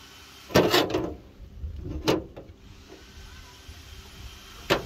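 Rusty cut-off pieces of steel chassis rail being handled against a car's steel floor pan, giving metal clunks and scrapes. There are three: a longer scrape about half a second in, a short clunk about two seconds in, and another near the end.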